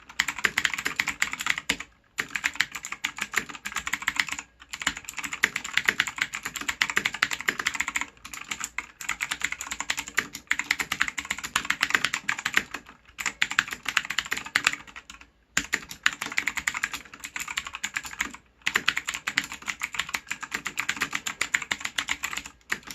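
Fast typing on a mechanical keyboard with blue (clicky) switches: dense runs of sharp key clicks, broken by brief pauses every few seconds.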